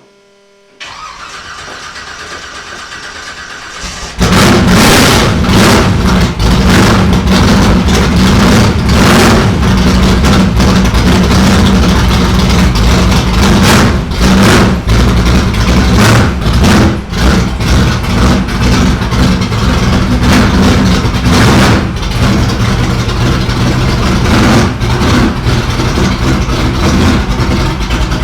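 A car engine is cranked by its starter for about three seconds, catches about four seconds in, and then runs loud and steady, with short surges and dips in level.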